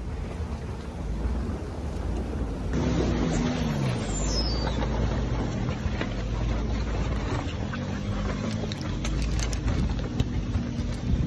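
Suzuki Jimny's engine running as it drives over a stony riverbed, its note falling away about four seconds in, with short clicks of stones under the tyres near the end.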